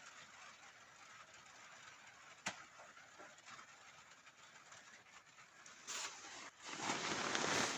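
Rain falling on a hut roof as a steady hiss, with one sharp knock about two and a half seconds in. About seven seconds in, a louder, fuller rush of noise swells up.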